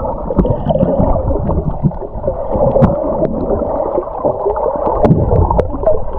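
Muffled underwater sound picked up by a submerged camera: water sloshing and gurgling with a low rumble, dull and cut off in the highs, with a few sharp clicks scattered through it.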